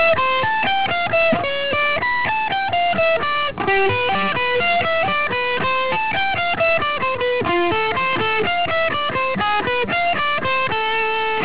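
Electric guitar playing a fast Baroque-style run of single notes, a repeating melodic pattern moved up through positions on the neck. It ends on a long held note, the high A on the 17th fret of the high E string.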